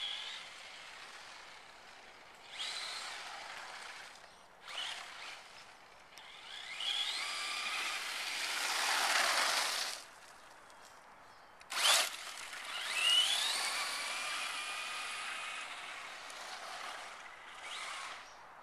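Traxxas Slash 4x4 RC short-course truck's electric motor whining, rising in pitch each time it accelerates, in several runs of a few seconds, the longest and loudest about six to ten seconds in, over a gritty hiss of tyres on the sandy asphalt. A single sharp knock just before twelve seconds in.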